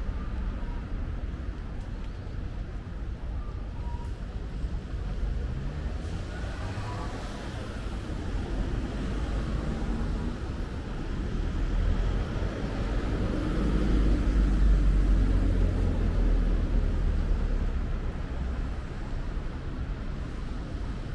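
City road traffic: a steady low rumble of passing cars, swelling as one vehicle goes by about two thirds of the way through and then fading.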